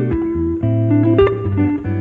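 Background music: a guitar-led instrumental with plucked notes over a bass line.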